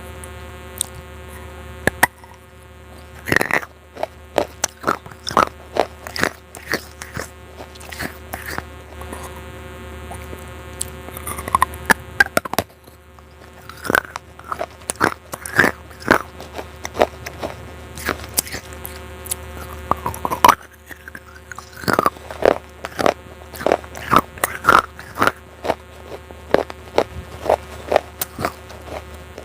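Pieces of baked clay pot being bitten and chewed close to the microphone: irregular crisp crunches, several a second in bursts, over a steady buzzing hum.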